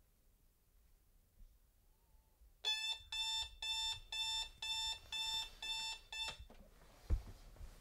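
A digital bedside alarm clock beeping, a rapid electronic beep repeated about twice a second, starting a few seconds in and cutting off after about four seconds. A single low thump follows shortly after.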